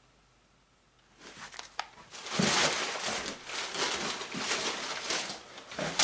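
Plastic bag and paper crinkling and rustling as parts are handled, starting about two seconds in.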